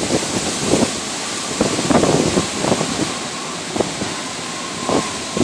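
Storm wind rushing and gusting through the trees, buffeting the microphone, with swells as the gusts come. A faint steady whistling tone comes in near the end.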